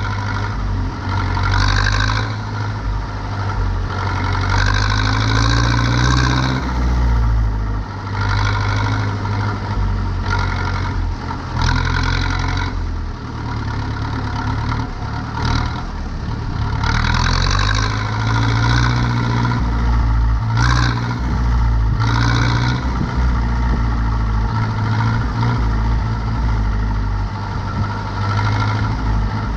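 Zetor 7245 tractor's four-cylinder diesel engine running steadily while working a hay field, its revs rising and easing off from time to time. Short spells of higher rattling noise come and go every few seconds.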